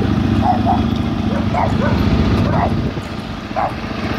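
Steady engine drone from a 125 cc motorcycle riding close behind a ride-on lawn tractor, with short high calls breaking in about six times over it.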